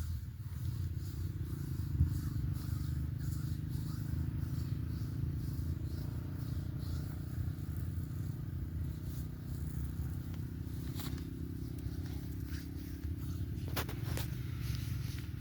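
Hands rubbing and kneading oiled skin during a massage, a steady low rubbing rumble with a few sharp clicks near the end.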